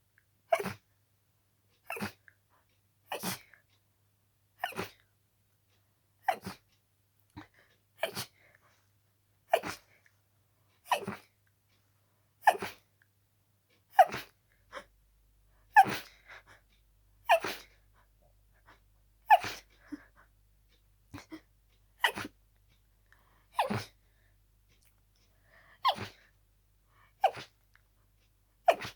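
A person's harsh, rapid sneezing fit from a cold: about twenty sharp sneezes in a row, roughly one every second and a half, with barely a breath between them.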